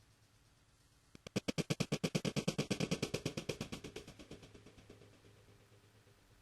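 A rapid run of even, sharp rattling taps, about nine a second, that swells and then fades away over about four seconds.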